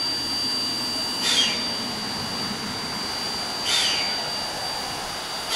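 Everett Railroad 2-6-0 steam locomotive No. 11 standing at rest, giving a steady hiss under a high whine. A short falling rasp of steam comes about every two and a half seconds.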